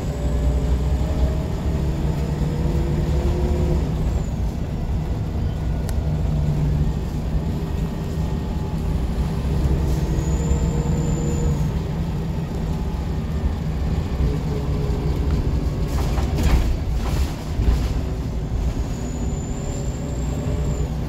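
Scania L94 bus heard from inside the saloon while under way. Its engine note rises and falls as the ZF automatic gearbox changes gear, with a few short knocks or rattles about three-quarters of the way through.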